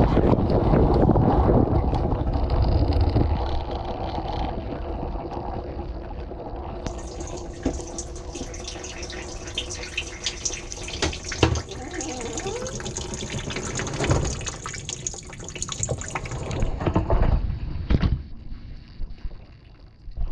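Water splashing and spraying inside a dishwasher tub, heard from inside the machine: heavy and loud for the first few seconds, then lighter splashing and dripping with scattered ticks and a few sharp knocks.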